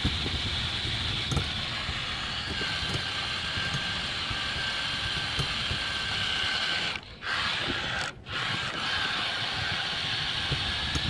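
An RC vehicle built into a portable gas stove case tows a wagon over paving tiles: its drive gives a steady whine over the rumble and small clicks of wheels on the tiles. The drive cuts out twice, briefly, a little past the middle.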